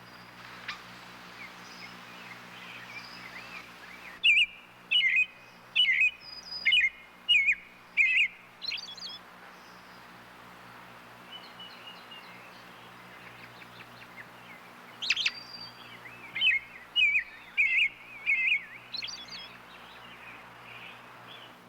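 Robin singing: two bursts of song, each a run of about six clear, loud notes followed by thin, high twittering. A faint steady low hum runs under it.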